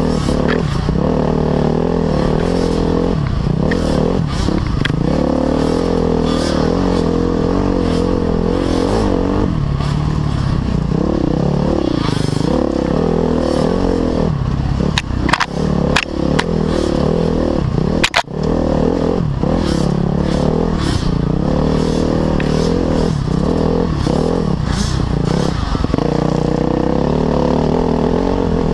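Off-road motorcycle engine running hard along a sandy trail, its pitch rising and falling as the throttle opens and closes. A few sharp knocks and a brief dip in the engine sound come a little past the middle.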